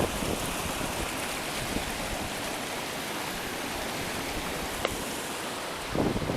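Steady rush of water from a rain-swollen mountain torrent, with a brief click about five seconds in and a low buffet near the end.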